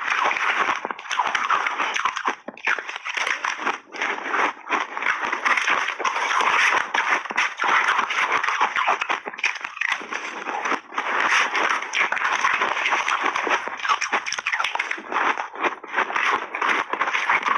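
Loud, close-miked crunching of pink berry shaved ice being chewed in big mouthfuls, with a metal spoon scooping and scraping the ice in a plastic tub. The crunching is almost continuous, broken by a few short pauses.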